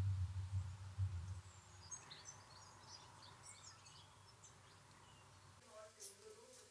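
Quiet outdoor ambience: a low pulsing rumble for the first second and a half, then small birds chirping faintly and intermittently, with a couple of faint clicks near the end.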